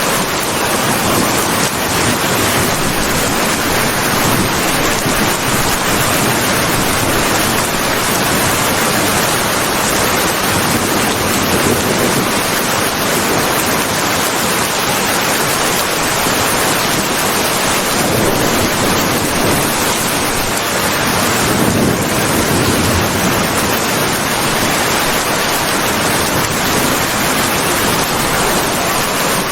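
Steady rain falling: a dense, even wash of noise with no separate drops or thunder heard.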